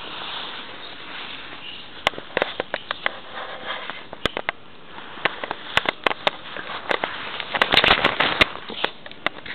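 A cat nuzzling and sniffing right at the camera: close rustling of fur against the microphone with scattered sharp clicks, thickest in a cluster near the end.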